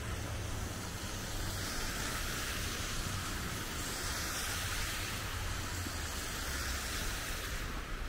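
Steady city street noise: a rushing hiss of passing traffic that swells a little midway, over a low rumble, with some wind on the microphone.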